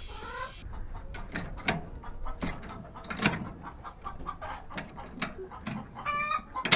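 Chickens clucking in a run of short calls, with one longer pitched squawk about six seconds in.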